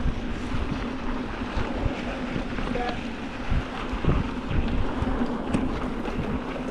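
Wind buffeting the microphone of a mountain bike rider on the move, over the rumble of knobby tyres rolling on a dirt trail, with frequent short knocks and rattles as the bike goes over bumps.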